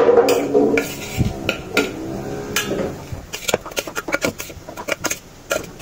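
Metal slotted spoon scraping and clinking against a stainless steel bowl while a moist rice mixture is stirred: irregular clinks, louder and busier in the first two seconds, sparser and softer after.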